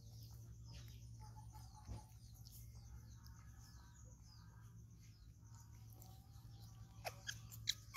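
Faint high chirps over a quiet background, then a few short, sharp, high squeaks from a baby macaque near the end.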